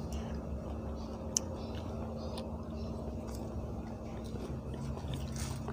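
Quiet chewing of green mango salad over a steady low hum, with one sharp click about one and a half seconds in.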